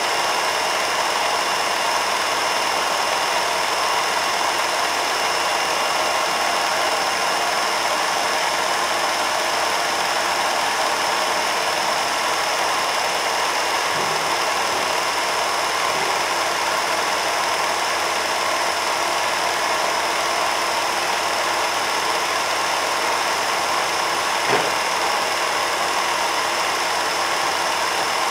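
Film projector running steadily: a continuous mechanical whir with a constant high tone, and a single short tick near the end.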